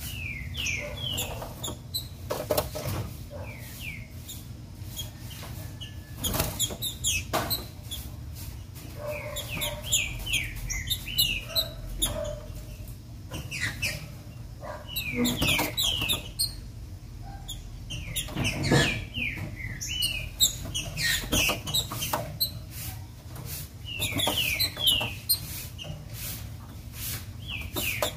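Female green-winged saltator (trinca-ferro) calling in short runs of quick downward-sliding chirps, a run every few seconds, with scattered sharp clicks and knocks between them.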